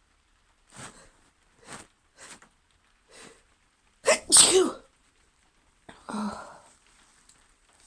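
A woman sneezing: a few short, faint breath sounds, then a loud sneeze about four seconds in, followed by a shorter, weaker voiced burst about two seconds later.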